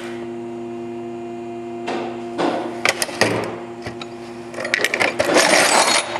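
A steady mechanical hum with several even pitches, with scattered clicks. In the last second and a half comes a noisy rattling slide, of the kind a tool chest drawer makes as it is pulled open.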